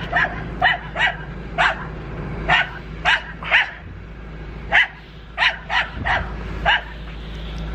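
A dog barking repeatedly: about a dozen short, sharp barks at uneven intervals.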